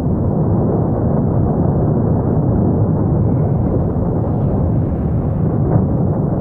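Cumbre Vieja volcano erupting: a loud, steady, deep rumble from the active vent, with no separate blasts standing out.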